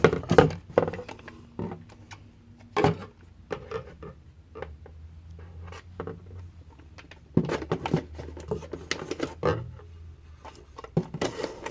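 Handling noises as a View-Master virtual reality viewer is taken out of its packaging and looked over: scattered clicks, taps and scrapes of plastic and cardboard, busier a few seconds from the end.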